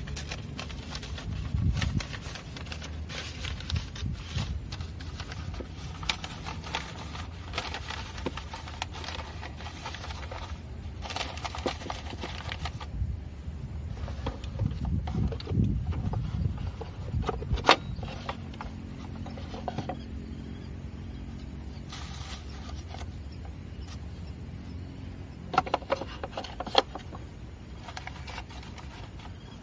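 Handling noise as a paper coffee filter is fitted into a plastic coffee dripper on a glass server: paper rustling, small clicks and scrapes, and a few sharper knocks of the dripper and server on a wooden table, over a low steady hum.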